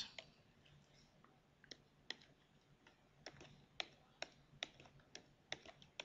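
Faint computer mouse clicks, about a dozen in quick succession a few tenths of a second apart, as keys are pressed one by one on an on-screen calculator emulator.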